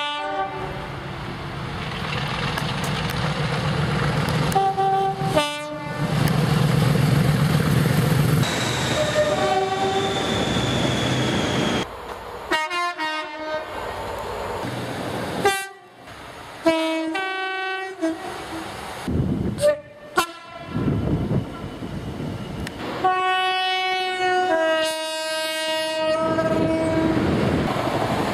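Train horns from several different locomotives and units, spliced one after another: a run of short and long blasts, several of them two-tone (a high note then a low one), with a diesel engine running and train noise between the blasts.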